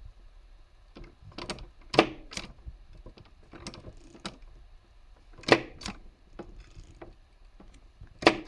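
KKT rotary index typewriter being worked by hand: light clicks of the mechanism, and three sharp strokes about three seconds apart as the plunger drives the type slug down to print.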